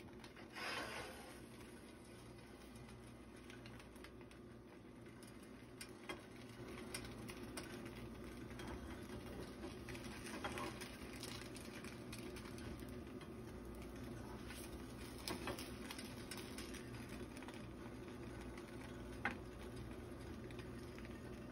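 Faint sizzling of a grilled cheese sandwich frying in butter in a stainless steel pan. A few light clicks and scrapes come from a spatula against the pan.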